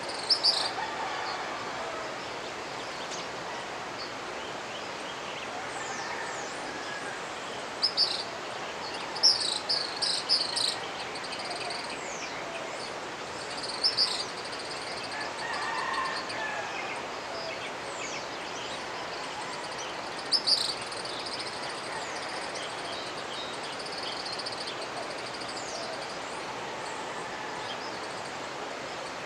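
Mountain river (the Jimenoa) rushing steadily, with birds breaking in several times with short clusters of sharp, high chirps, the busiest run near the middle. A thin, high insect trill runs behind the water.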